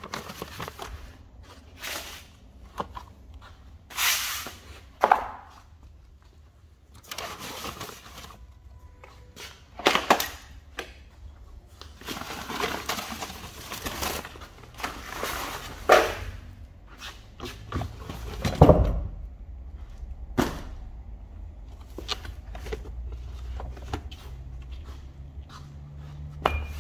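Old, crumbling fabric and padding being pulled out of a car's boot and tossed onto the floor: irregular rustling and scraping broken by a few sharp knocks and thuds.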